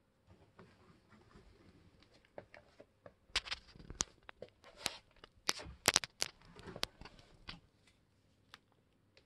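Crinkling, crackling handling noise: a run of sharp clicks and rustles starting about three seconds in, loudest past the middle, and stopping well before the end.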